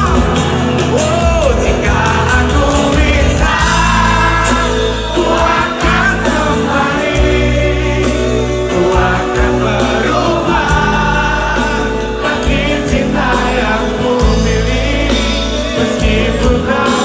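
A song playing, with a singing voice over steady bass and backing instruments.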